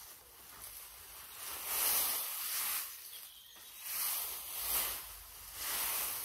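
Dry straw bedding rustling and swishing as it is forked up and shaken out with a pitchfork, in a run of scratchy swishes about a second apart.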